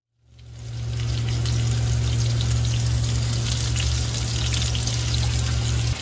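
Gas oven running with a steady low hum and hiss, with faint crackling from stuffed pigeons sizzling as they brown on the tray. It fades in just after the start.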